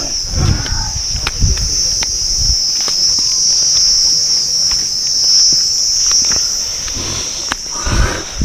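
Steady, high-pitched insect chorus: a continuous drone of crickets or similar insects, with brief low voices near the start and near the end.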